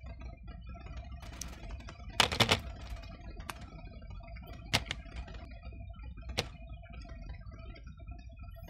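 Quiet background music with sparse sustained notes, under a few sharp crunching clicks from a slice of pizza being bitten and chewed, the loudest about two seconds in.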